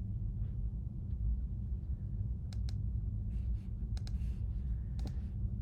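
A few sharp clicks from computer input, several in close pairs, over a steady low hum.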